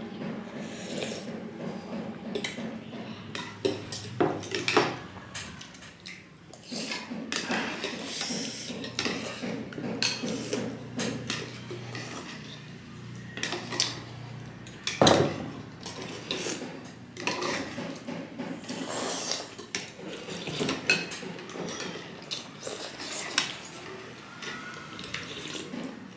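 Spoons and forks clinking and scraping against ceramic soup bowls while noodle soup is eaten close to the microphone, with sipping and slurping of the broth between the clinks. One louder knock about fifteen seconds in.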